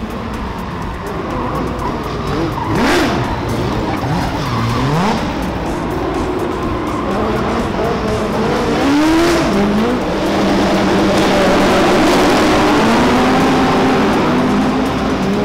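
Several competition cars' engines revving up and down as they drift, with tyres squealing and skidding.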